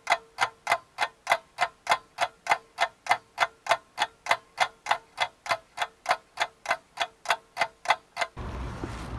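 Ticking-clock sound effect laid in during editing: evenly spaced sharp ticks, about three a second, over a faint steady hum, with the live background sound cut out while it plays.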